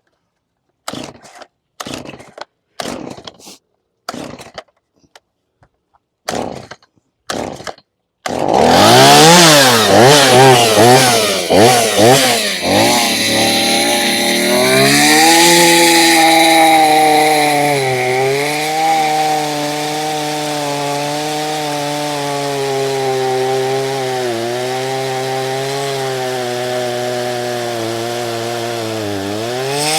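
Gas chainsaw started with about nine short pulls of the starter cord, catching about eight seconds in. It is revved up and down several times, then runs at a steady high pitch cutting through a juniper log, dipping briefly in pitch a few times as the chain bites.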